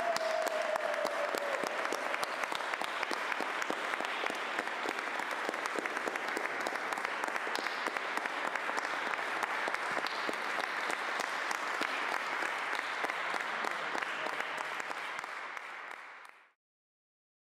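Audience applauding steadily, fading out shortly before the end.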